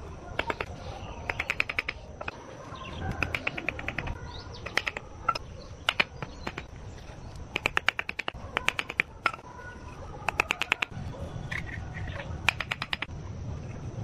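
Bricks being set into fresh cement mortar with quick bursts of light taps, a metal hand tool knocking on the bricks several times in a row, with pauses between the bursts.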